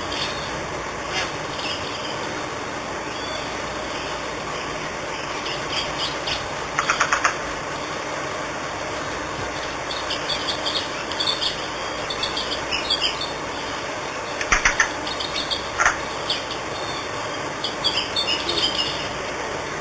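Short bird chirps, scattered and more frequent in the second half, over a steady noisy background, with a few sharp clicks.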